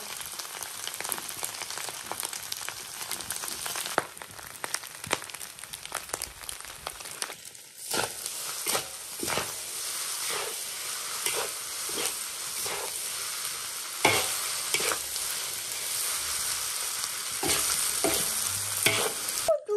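Fried rice sizzling in a hot wok while a spatula scrapes and tosses it, at the finishing stage with the spring onions just stirred in. From about eight seconds in the scrapes settle into a steady beat, roughly one every two-thirds of a second.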